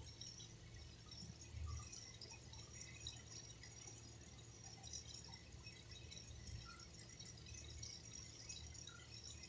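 Faint water dripping: a few scattered drops over a steady low rumble.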